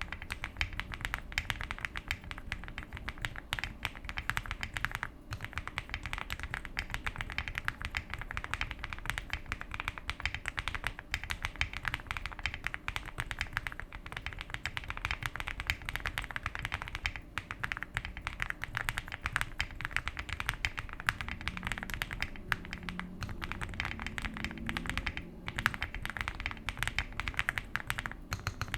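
Continuous fast typing on a Zoom75 75% mechanical keyboard, lubed and modded, with Akko CS Silver linear switches: a dense stream of keystrokes with a creamy, poppy sound.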